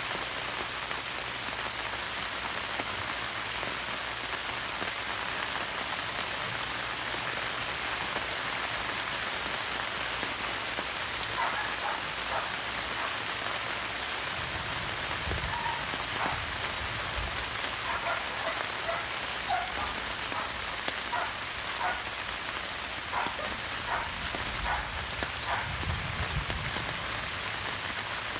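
Steady rain falling, with scattered short high ticks in the second half and two brief low rumbles.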